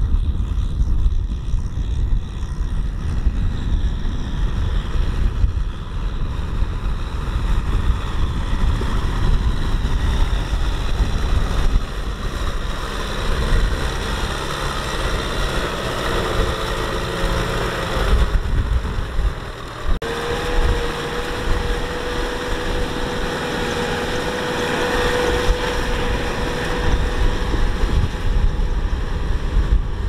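Rice combine harvester engine running steadily, with wind buffeting the microphone. After a brief lull about two-thirds of the way through, a steady whine from the machine comes in and holds.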